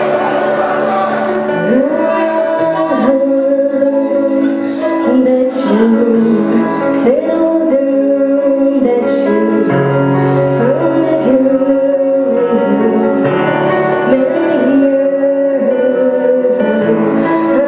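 A young woman singing into a microphone over musical accompaniment, holding long notes that slide from one pitch to the next.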